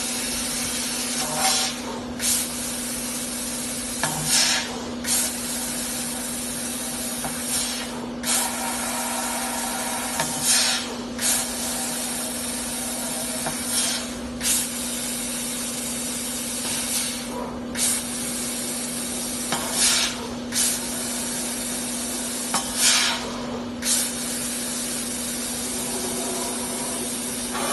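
JQ 6000 laser tube-cutting machine cutting steel pipe: a steady hiss over a steady low hum, broken every few seconds by a brief drop-out and a short louder surge as the cut stops and starts again.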